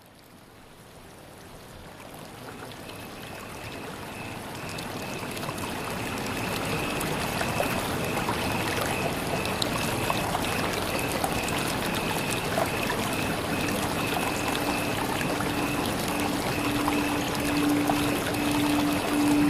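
A steady rushing noise like running water fades in over the first several seconds, with a faint high tone held above it. About two-thirds of the way through, a low held tone enters and swells.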